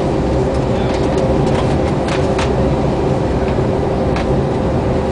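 Airliner cabin noise: a steady, loud drone of jet engines and airflow with a constant hum, and a few faint clicks.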